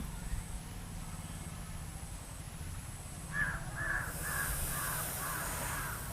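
A crow cawing: a quick run of about seven caws beginning about halfway through, over a low steady background hum.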